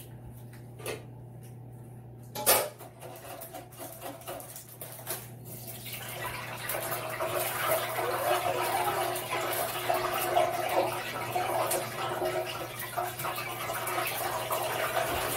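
Hot oil sizzling and bubbling as potatoes go in to fry, starting about six seconds in and carrying on steadily. Before it there is a steady low hum and one sharp click about two and a half seconds in.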